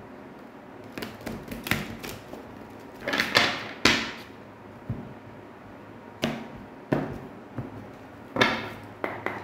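Tarot cards being handled on a table: a run of crisp swishes and taps as the deck is shuffled and cards are drawn, with the two loudest swishes about three seconds in and near the end.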